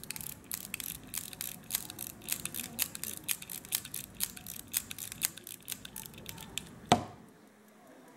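Crown of a 1940s Alpina pocket watch being wound: a rapid, uneven run of small ratchet clicks, several a second, as the click works over the ratchet wheel. It is followed by one sharper, louder click about seven seconds in.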